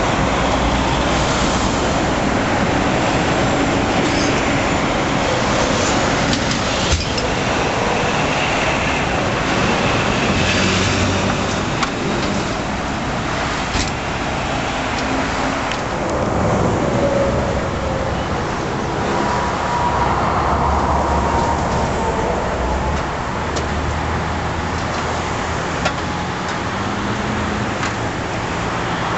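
Steady noise of interstate traffic with a low engine hum, broken by a few sharp clicks.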